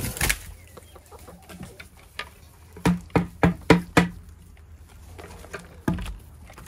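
Backyard chickens clucking as they come to be fed, with a quick run of five short, loud sounds about three seconds in.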